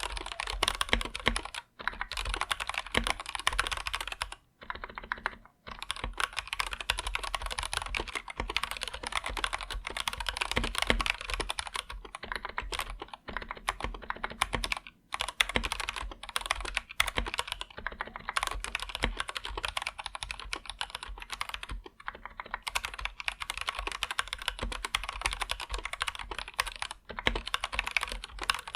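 Steady, fast typing on an Anne Pro 2 mechanical keyboard with Gateron Red linear switches: a dense run of key clacks with a few brief pauses between bursts.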